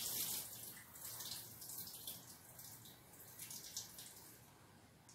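Tap water running and splashing into a metal bowl of rice being rinsed at the kitchen sink, growing fainter toward the end.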